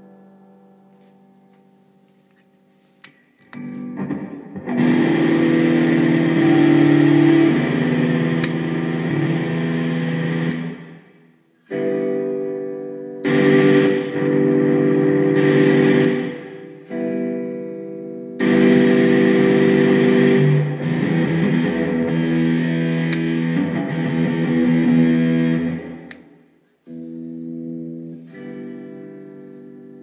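Line 6 JTV-59 Variax electric guitar played with distortion, sustained chords ringing out in blocks that cut off abruptly several times: the toggle switch failing on the bridge magnetic pickup. A few small clicks come before the playing starts.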